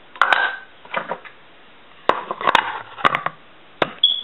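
Irregular knocks, clicks and short rustles of kitchen items and containers being handled close to the microphone, with a brief high squeak near the end.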